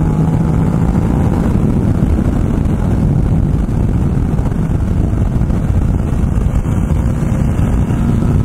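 Ducati Multistrada motorcycle running steadily at road speed, its engine and tyre noise mixed with wind rushing over the microphone.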